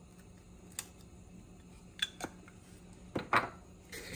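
A handful of light clicks and taps of spice jars and lids being handled, the loudest pair about three seconds in, over a faint steady hum.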